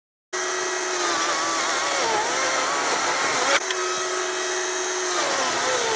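Stihl MSA 200C 36-volt battery chainsaw cutting into a wooden beam under hard down pressure. It starts about a third of a second in, and its motor whine sags in pitch as it bogs down in the cut. Near the end the whine falls away as the saw is driven toward a stall.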